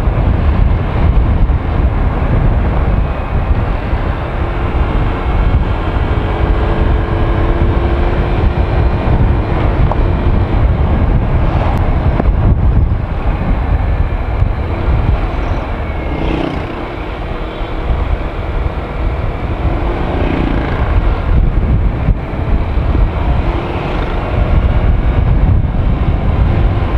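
Wind rumbling loudly on the rider's microphone while riding a Honda Click 125i scooter at road speed, with the scooter's single-cylinder engine running underneath. A faint steady hum rises out of the noise for a few seconds early on and again about two-thirds of the way through.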